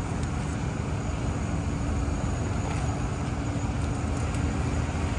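Steady city street noise: a continuous rumble of traffic with a faint steady hum.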